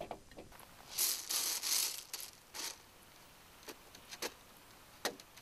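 Crushed stone rattling and scraping as it is handled around a concrete foundation block, to raise the block under the shed frame: a dense burst of shifting gravel about a second in, then a few scattered clicks of single stones.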